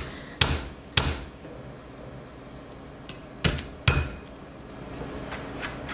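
Chef's knife chopping garlic on a wooden cutting board, the blade knocking on the wood. There are four sharp knocks, then a run of lighter, quicker taps near the end.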